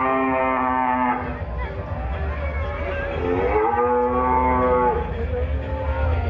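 Two long cow moos. The first comes right at the start and lasts about a second and a half. The second comes a little past three seconds in, rises at its start and is held for nearly two seconds. A steady low hum runs beneath.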